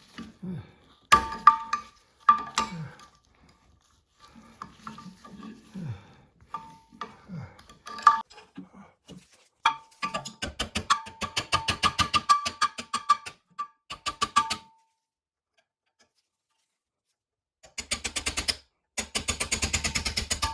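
Steel vise parts clinking and knocking as they are handled, with a ringing metallic tone, then fast runs of rattling clicks. The sound stops for a few seconds near the end, and then another fast rattle starts.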